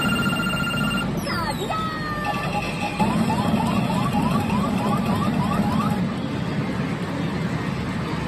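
PA Drum Umi Monogatari pachinko machine's electronic sound effects during a rank-up presentation: a held tone that stops about a second in, a few falling glides, then a quick run of about eight short rising chirps. A steady low background noise runs under them.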